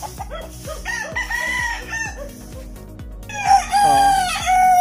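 Chickens clucking in a run of short notes, then a rooster crows loudly about three and a half seconds in, one long call that lasts to the end.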